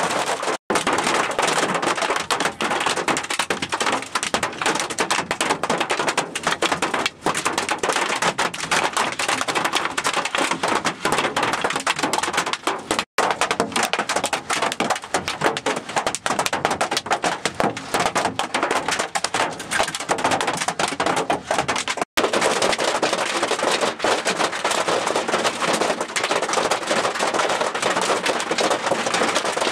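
Heavy rain drumming hard on the roof and glass of a vehicle, a dense steady patter of impacts heard from inside the cabin.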